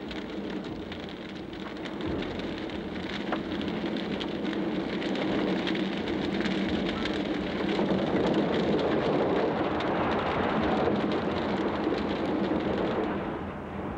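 Advancing lava flow crackling and hissing as its front grinds into buildings, a dense noise of many small cracks that swells about eight seconds in, with a faint steady low hum underneath.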